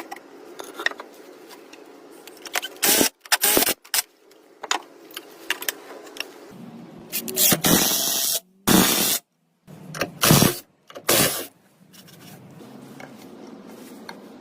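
Woodworking tools at work: a run of short, loud scrapes and knocks at irregular intervals over a steady low hum, with a few abrupt breaks.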